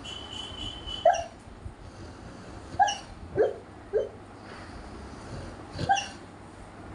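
Golden retriever snoring in its sleep: about five short pitched snorts at uneven intervals, with a thin steady high tone during the first second.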